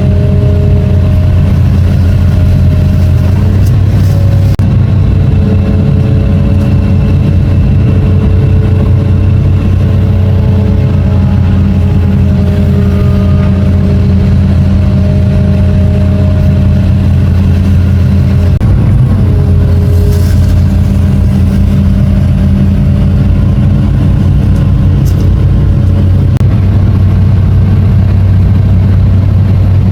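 Long-reach excavator's diesel engine running steadily under load, its held tones shifting in pitch a few times as the hydraulics work the boom and arm.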